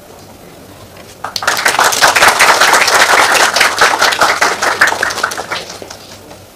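Audience applauding. The clapping starts about a second in, holds strong, then thins and fades out near the end.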